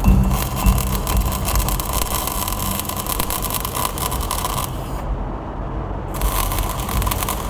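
Arc welding crackle and sizzle, breaking off for about a second around five seconds in and then starting again, over a steady low hum.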